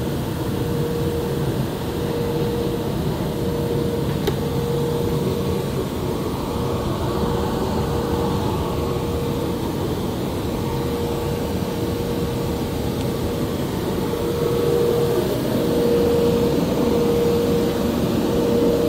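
Gerber automated flatbed cutting table running while it cuts a leather hide: a steady machine hum and rush with a thin whine that comes and goes and is stronger in the last few seconds. A single sharp click about four seconds in.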